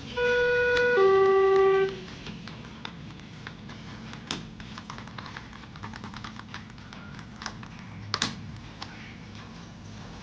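Schindler 330A hydraulic elevator's two-note chime: a higher tone, then a lower one, about a second each, the falling two-note signal of a car travelling down. A string of light clicks and ticks follows, with a sharper double click about eight seconds in.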